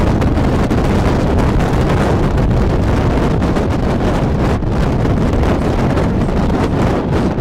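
Loud, steady wind rumbling and buffeting the microphone at the open window of a moving vehicle.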